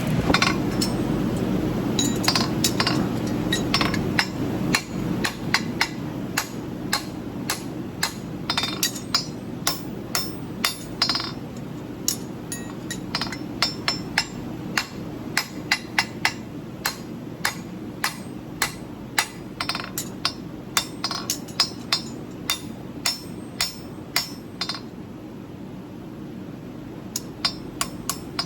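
Farrier's hammer striking steel horseshoe work in a long series of ringing metallic blows, about two a second, over a steady low rumble. The blows ease off briefly near the end.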